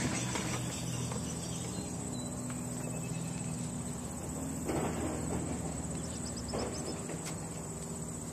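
Steady high-pitched chirring of insects, with a brief knock about halfway through.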